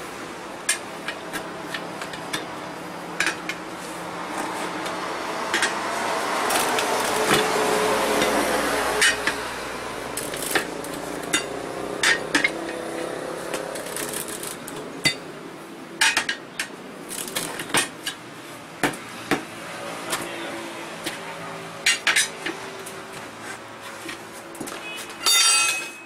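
Steel tyre levers clinking and scraping against a steel car wheel rim while the tyre bead is levered over the rim: sharp metallic clinks every second or so over steady background noise. Near the end a short, loud clattering rattle.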